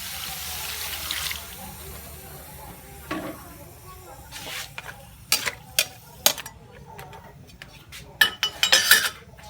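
Frog meat frying in a pan: a sizzle that drops away after about a second, then scattered sharp clacks of a utensil stirring against the pan, with a louder cluster near the end.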